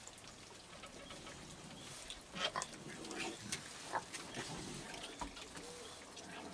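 Raccoons moving about on a wooden deck and bench: scattered faint claw clicks, scuffles and small knocks, a few sharper ones about two and four seconds in.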